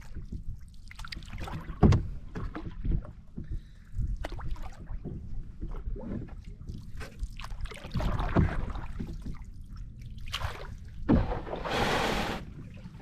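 Canoe being paddled: paddle strokes swishing in the water with irregular knocks against the hull, and a louder rush of noise for a second or so near the end.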